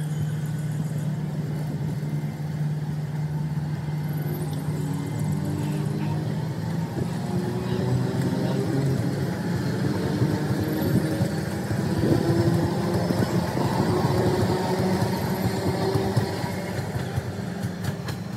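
Passenger train coaches running past on the rails: a steady rumble and rapid clatter of the wheels, louder in the middle and easing as the last coach goes by near the end.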